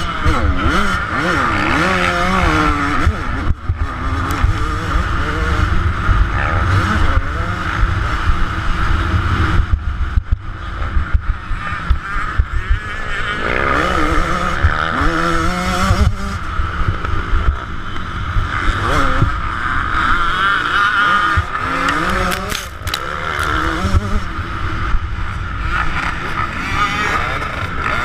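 Two-stroke single-cylinder engine of a 2009 Yamaha YZ125 motocross bike, heard from on board while riding the track, its pitch climbing and dropping again and again as the throttle is opened and shut through turns and jumps. A dense low rumble runs underneath.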